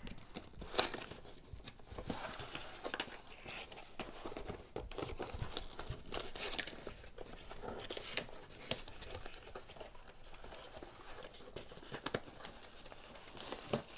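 Cardboard shipping box sealed with packing tape being pried and torn open by hand: irregular crinkling, rustling and tearing of cardboard and tape, with one sharp crack about a second in.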